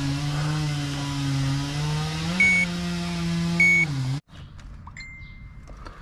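A steady motor whine that steps up slightly in pitch partway through, then sags and stops after about four seconds, with two short high beeps over it.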